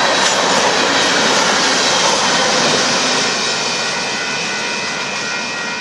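Covered hopper cars of a freight train rolling past on the rails: a loud, even rush of wheel and car noise that fades from about halfway through as the last car goes by, with a few faint steady high tones coming in near the end.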